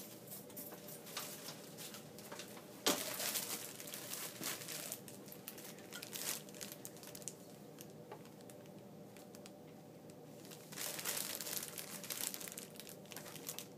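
Clear plastic barrier bag over a dental X-ray tube head crinkling as the tube head and its cone are handled and moved into position. It comes in two spells of crackling, with a sharp click about three seconds in.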